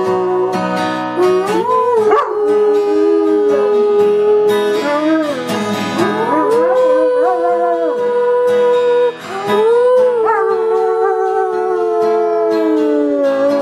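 German Shepherd howling along to a strummed acoustic guitar: several long howls that slide up and down in pitch, the last one drawn out for a few seconds and slowly falling.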